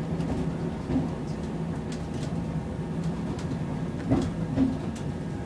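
Passenger train running, heard from inside the carriage: a steady low hum, with a few short knocks about a second in and again near four seconds.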